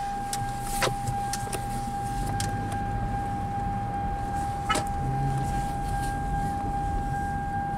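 Car cabin as a Toyota Camry pulls away slowly from a stop: a low rumble of the car and its tyres builds from about two seconds in, under a steady high whine, with a few light clicks.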